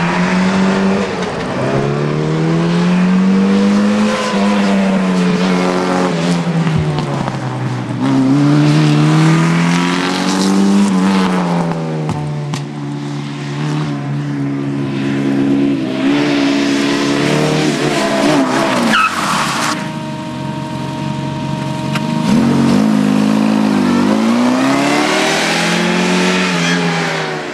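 Mini Moke's BMC A-series four-cylinder engine revving hard and easing off again and again as it is driven through the corners of a cone course, its pitch rising and falling several times.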